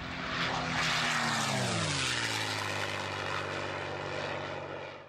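Propeller airplane passing by, its engine note dropping in pitch over about a second as it goes past, then holding steady and fading out at the end.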